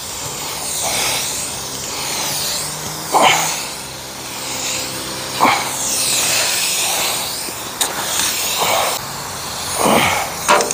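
Aerosol spray primer hissing out of a ruptured spray can that can no longer be shut off, swelling and fading as it is swept over the metal.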